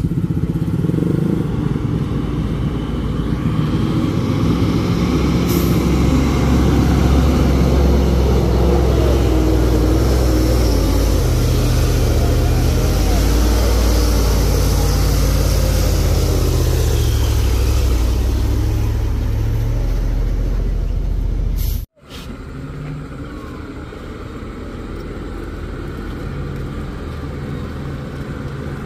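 Mitsubishi Fuso truck's diesel engine working hard as it climbs a steep dirt grade and passes close, its low note wavering and rising. About 22 seconds in the sound cuts off abruptly, and fainter, steadier engine noise follows.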